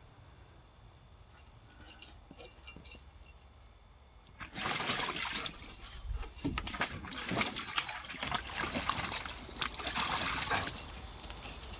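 German shepherd puppy wading and splashing in shallow water in a plastic kiddie pool: irregular sloshing and splashing that starts after a few quiet seconds, about four and a half seconds in, and dies down near the end.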